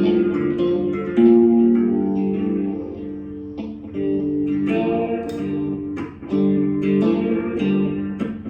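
Guitar playing, chords struck and left ringing, a new chord about every second or so.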